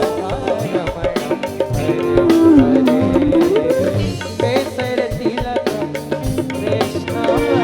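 Bhajan band playing an instrumental passage: a sliding melodic lead line over a steady hand-drum rhythm.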